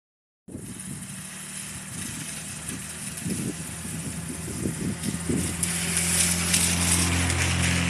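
A vehicle's engine humming steadily, with a hiss that swells to its loudest about six to seven seconds in, as when a vehicle passes close by.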